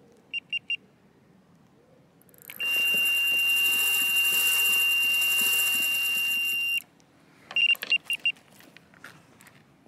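Electronic carp bite alarm beeping three times, then sounding one continuous tone for about four seconds over the fast whir of line stripping off the reel's free-spool: a run, a carp taking the bait. A few more quick beeps and clicks follow near the end.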